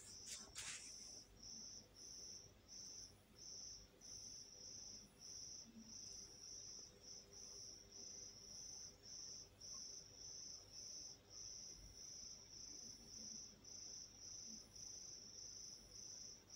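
A cricket chirping faintly and steadily, short high-pitched chirps at about two a second.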